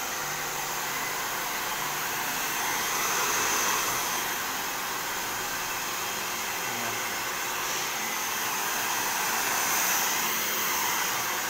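Handheld hair dryer running steadily, blowing cool air over straightened hair to finish it.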